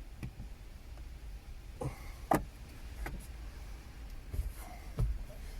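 Irregular clicks and knocks of plastic interior trim panels and their retaining clips being pried at and handled in a 2001 Audi A4 estate, about six in all, the loudest about two and a half seconds in.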